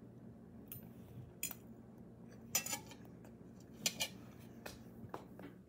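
Metal fork clicking and clinking about half a dozen times while a mouthful of potato is eaten, the sharpest clinks about two and a half and four seconds in, over a steady low hum.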